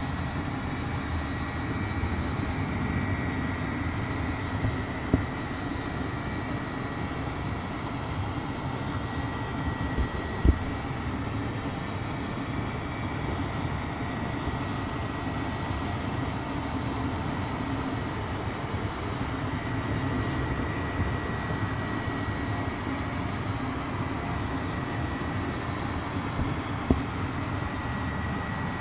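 A train running: a steady rumble with a faint steady high whine, broken by a few short sharp knocks, the loudest about ten seconds in.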